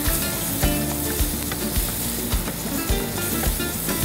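Chopped onion and garlic sizzling as they fry in butter in a pan, stirred with a wooden spoon, over background music with a steady beat.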